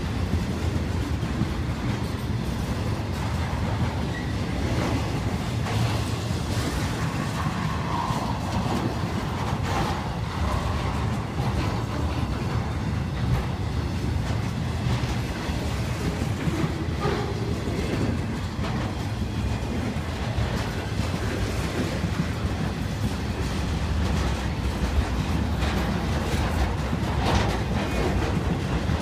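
Freight cars of an intermodal train carrying highway trailers and containers rolling past: a steady low rumble with constant clicking and clatter of the wheels on the rails.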